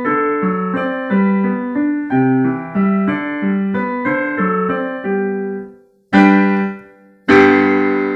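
Digital piano playing a classical piece in a steady run of notes that fades away about five and a half seconds in, then two loud closing chords a second apart, the last one held and dying away: the end of the piece.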